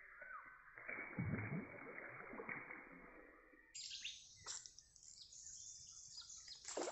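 Birds chirping with short downward-sliding calls, and a burst of noise about a second in.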